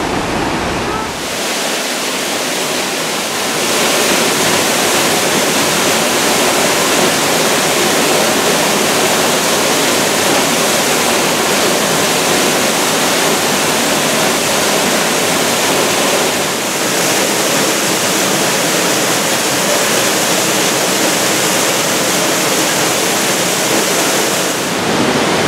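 Waterfall pouring onto rocks, heard up close as a loud, steady rush, swollen by high mountain runoff.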